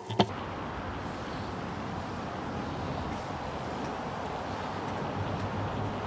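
A single click near the start, then a steady outdoor rushing noise with no distinct events.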